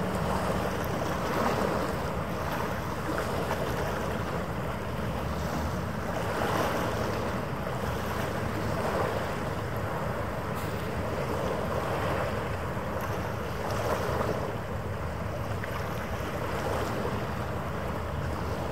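Wind rushing over the microphone together with harbour water, swelling every two to three seconds over a faint steady hum.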